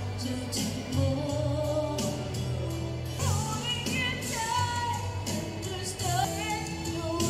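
A woman singing karaoke into a microphone over a backing track with a steady beat, played through PA speakers.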